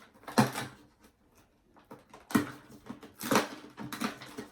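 A cardboard advent calendar door being opened and the packaging inside handled: a few short rustles and scrapes, with a quieter pause in between.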